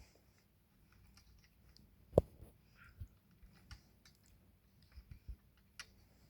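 Scattered light metallic clicks and taps as an M6 screw is turned clockwise into a repaired threaded hole in a desk crossbar, with one sharper knock about two seconds in. The screw is starting to catch on the repaired threads.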